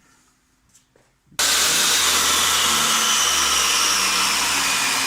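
Aluminium-cutting saw's electric motor switched on about a second and a half in, then running at full speed with a loud, steady high whine. A faint click comes just before it starts.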